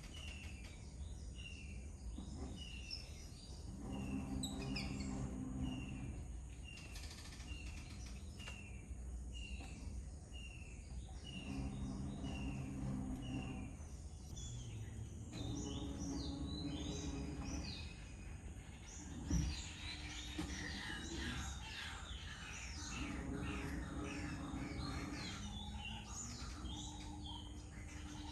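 Garden birds calling. One bird repeats a short falling note a little more than once a second for the first ten seconds, and a busier mix of chirps follows in the second half. A low hum comes and goes in the background, and there is a single thump about nineteen seconds in.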